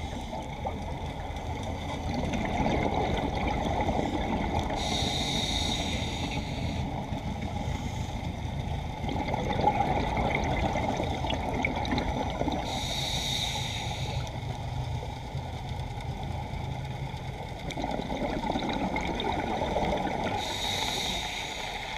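Underwater sound of scuba breathing through a regulator: a steady low rumble of water, broken about every eight seconds by a hissing, bubbling burst of exhaled air, three times in all.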